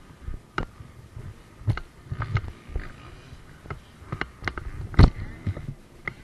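Irregular knocks, taps and rubbing from a helmet-mounted action camera being handled. The loudest knock comes about five seconds in.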